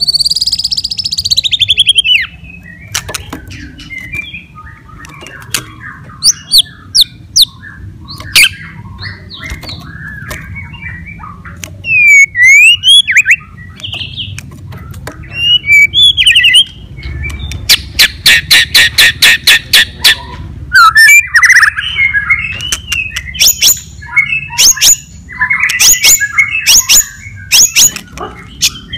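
White-rumped shama (murai batu) in full, non-stop song: loud varied whistled phrases with rising and falling notes, mixed with sharp clicking notes, and a fast, even rattle for about two seconds a little past the middle.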